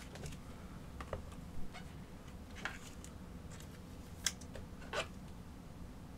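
A few light, irregular clicks and taps of trading cards being handled and set down, over a low steady hum; the sharpest taps come a little after four seconds and at five seconds.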